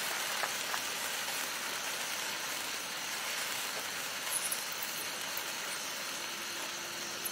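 Wood-stick gold sparklers burning: a steady fizzing hiss with a few faint crackles of sparks.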